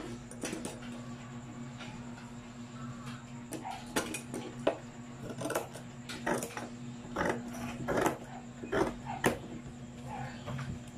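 Large metal tailor's scissors cutting through cotton fabric along a chalked line, snip after snip at an irregular pace with sharp clicks of the blades closing, starting a few seconds in.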